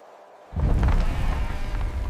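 A brief hush, then a sudden deep, loud rumble sets in about half a second in and keeps going, mixed with dramatic music.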